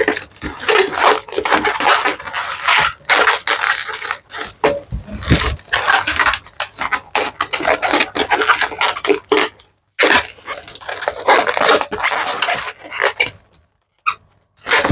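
Long latex modeling balloons squeaking and rubbing against each other as they are twisted and handled, in irregular bursts with brief pauses about two-thirds of the way in and near the end.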